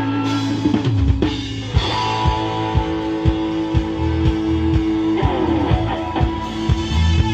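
Live rock band playing: held guitar notes over a drum kit, with the kick drum keeping a steady beat from about a second in.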